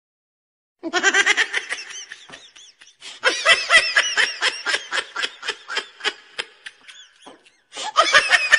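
High-pitched laughter in rapid, rhythmic pulses, coming in three runs: the first starts about a second in, a longer one about three seconds in, and another near the end.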